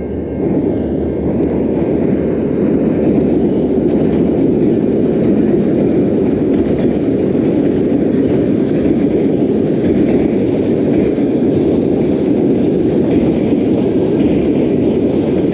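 Freight train of tank cars crossing a steel railroad bridge: a loud, steady rumble of wheels on rails.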